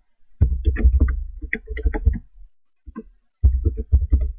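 Computer keyboard typing: two quick runs of keystrokes, the first lasting about two seconds and the second starting about a second after it ends, as a password is entered and then entered again to confirm it.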